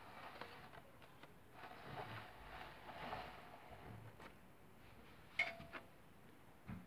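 Faint rustling and scraping as a toy train pushes into a paper model train on a wooden floor, crumpling the paper, then a few sharp clicks.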